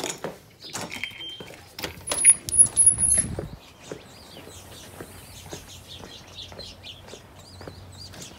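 Footsteps and handling noises, with loud knocks and thuds about two to three seconds in as a door is opened and shut. From about four seconds on, birds chirp repeatedly outdoors over the footsteps.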